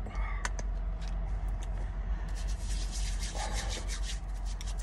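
Hands rubbing together, a dry, scratchy rubbing that starts about two seconds in, over a steady low rumble in the truck cab. A few light clicks come near the start.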